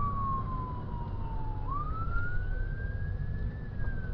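Emergency-vehicle siren on a slow wail: one tone slides down for about a second and a half, sweeps back up over the next two seconds, and starts down again near the end, over a steady low rumble.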